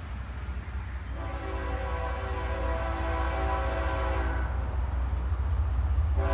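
Diesel freight locomotive's multi-note air horn sounding a chord for the grade crossing: one long blast of about three seconds starting a second in, and the next blast beginning near the end. Underneath, a steady low rumble grows louder as the train approaches.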